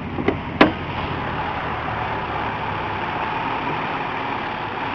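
Car engine idling steadily, with two short clicks in the first second. The engine idles but stalls when given gas, which the men take for a failing fuel pump.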